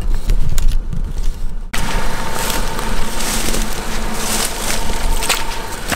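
Stuck car: a heavy low rumble, then after a sudden change a steady engine hum under dense crunching and crackling.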